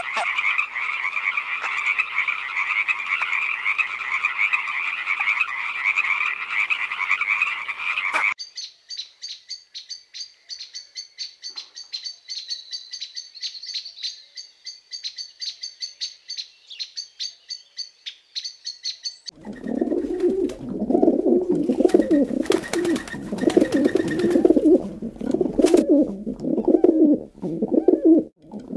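A frog calls in a fast, continuous trill for about eight seconds. It cuts to a thin, high, rapid ticking trill, and then, after about nineteen seconds, to imperial pigeons giving deep, repeated coos.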